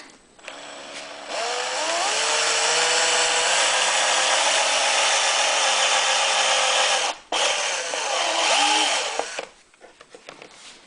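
Power drill boring the hole for the fuel fitting in a generator's cover. The motor spins up about a second in and runs steadily, cuts out for a moment, then runs again with its pitch dipping under load before stopping near the end.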